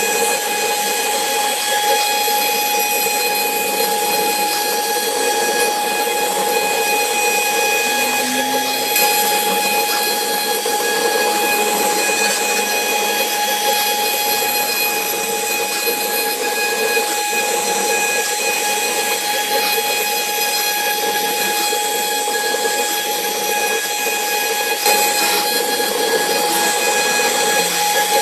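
CNC router spindle running steadily with a high, even whine over a rushing noise.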